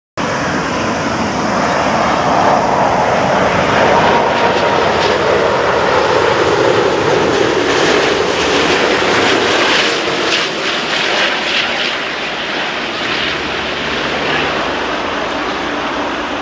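Thai Airways Airbus A380's four Rolls-Royce Trent 900 turbofans on final approach as the airliner passes close and flares for landing: a loud, steady jet roar that cuts in suddenly, is loudest for the first ten seconds and then eases a little as the plane moves on down toward the runway.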